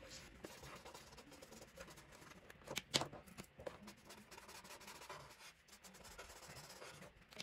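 Felt-tip marker rubbing across paper in short shading strokes, faint, with a few sharper ticks about three seconds in.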